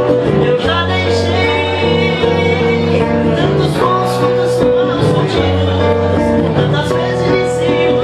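A man singing and strumming an acoustic guitar, a solo live song.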